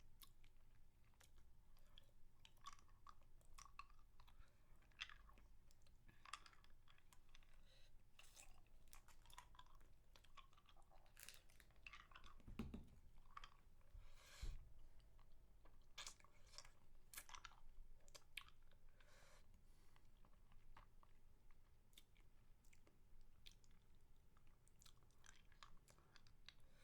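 Faint mouth sounds of eating a spicy mango lollipop: a steady run of short wet smacks and clicks, with two louder knocks about halfway through.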